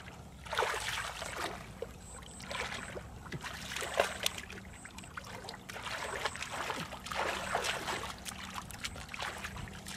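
Shallow muddy water sloshing and splashing in irregular bursts as a person wades through it and gropes in the mud by hand, the loudest splash about four seconds in.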